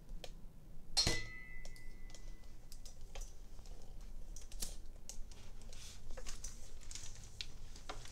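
Handling noise as the camera is picked up and moved: scattered light clicks and knocks. About a second in there is one sharp metallic clink that rings briefly.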